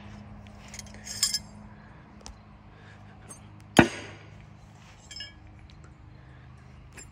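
A throwing knife hits a wooden board target with one sharp thunk about four seconds in. A light metallic clink of knives comes a little over a second in.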